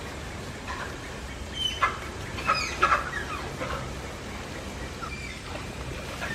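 Malayan tapirs squealing: short, high-pitched squeaks that fall in pitch, in a cluster of several a couple of seconds in and a single one near the end, the calls of excited tapirs.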